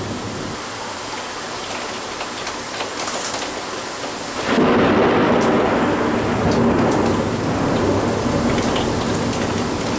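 Heavy rain, with drops ticking on the window glass. About halfway through, a rumble of thunder sets in suddenly and rolls on, louder than the rain.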